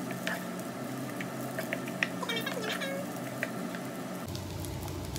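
Fried rice sizzling in a nonstick frying pan, with a wooden spatula stirring and scraping and ticking against the pan. About two seconds in there is a brief high-pitched call.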